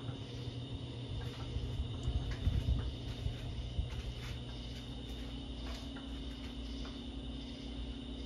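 Hampton Bay Roanoke ceiling fan running with a steady low motor hum and scattered light ticks. It runs slowly on a failing capacitor.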